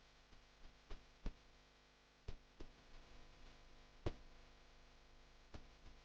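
Faint room hiss broken by about six light, sharp clicks or taps at irregular intervals, the loudest about four seconds in.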